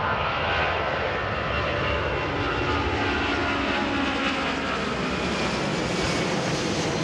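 McDonnell Douglas KC-10 Extender tanker's three turbofan engines at climb power as it climbs away just after takeoff and passes overhead: a loud, steady jet engine noise with faint tones that slowly fall in pitch as it goes by.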